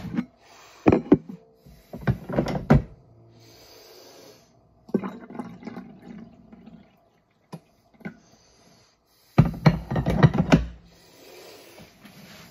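Coffee being poured and a mug and pot being handled on a kitchen counter: several short bursts of knocks and clatter, with a softer rush of pouring in the middle.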